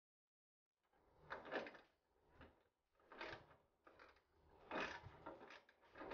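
Hand socket ratchet clicking in several short bursts as a bolt on the car body is turned.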